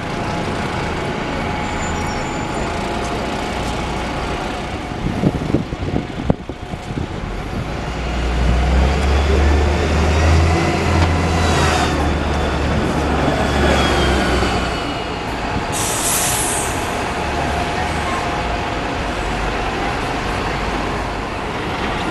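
City buses in street traffic. A double-decker bus passes close by with a deep engine rumble from about eight to fifteen seconds in, and a short hiss of air brakes follows about a second later.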